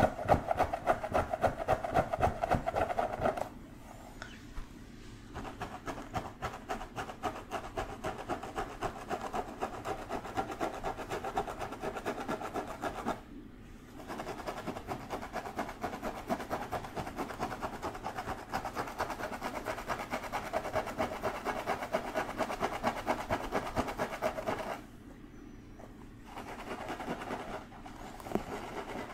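Fingertips scratching rapidly through long hair on a head, a dense run of close scratchy strokes that stops briefly three times.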